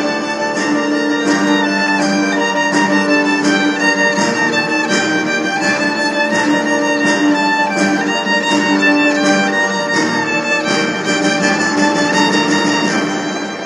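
Violin played live, a melody over steady low held notes with a regular pulse; the level drops away near the end.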